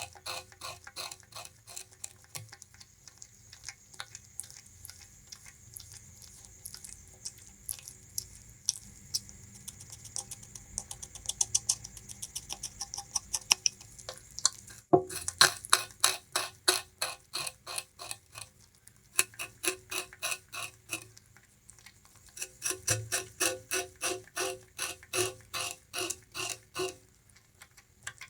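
Bamboo rat gnawing and chewing sugarcane: rapid crisp crunching, several bites a second, softer in the early stretch and louder after a sudden break midway, with a short lull about three-quarters through.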